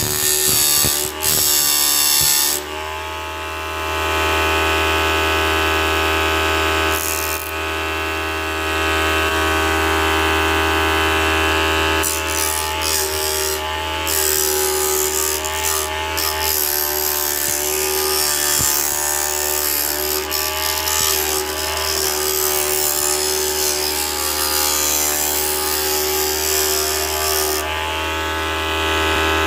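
Homemade disc sander driven by a 775 DC motor, running with a steady whine while workpieces are pressed against the spinning sanding disc, giving a rough grinding rasp. The motor's pitch dips slightly about two and a half seconds in.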